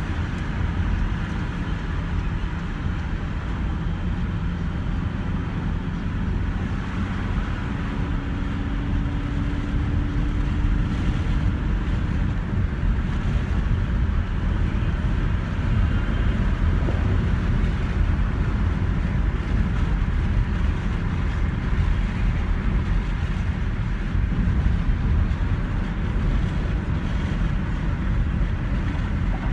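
Steady low rumble of tyres, engine and wind heard inside a van's cabin at motorway speed.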